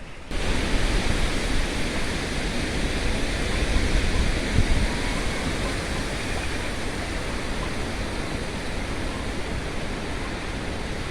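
Strong wind blowing: a steady rushing noise that sets in abruptly just after the start and holds without a break.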